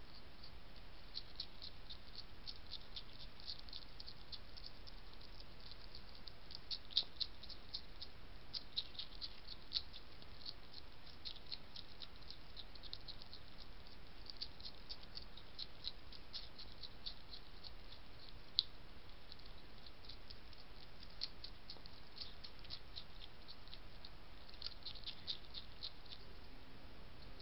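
European hedgehog chewing dry kitten biscuits: rapid, irregular small crunching clicks, with a few sharper cracks between about seven and ten seconds in and again near eighteen seconds, over a steady hiss.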